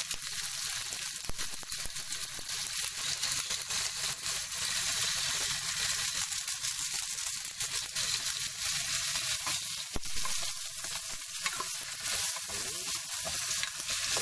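Chicken pieces sizzling and crackling as they sauté in hot oil with garlic, onion and ginger in a pot, a steady frying hiss with scattered pops, being browned.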